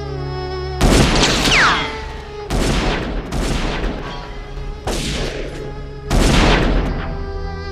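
Heavy gunshots in a film shootout, about five of them spaced a second or more apart, each with a long ringing tail. A falling whistle follows the first shot, and a sustained string score continues underneath.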